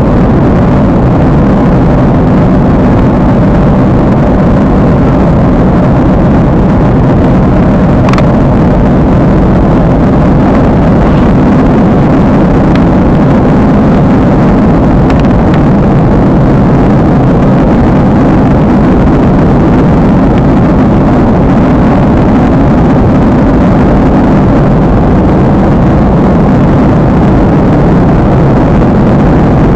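Steady, loud rumble of an airliner's jet engines and rushing air heard inside the cabin, with a faint click about eight seconds in.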